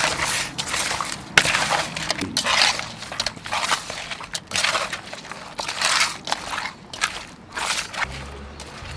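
Hands squeezing and turning raw cuttlefish in a sticky marinade in a stainless steel bowl: irregular wet squelches, about two a second.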